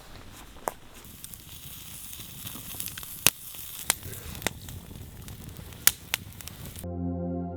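Steady rain hiss with a handful of sharp ticks from drops or taps. About a second before the end, ambient music with long held tones comes in over it.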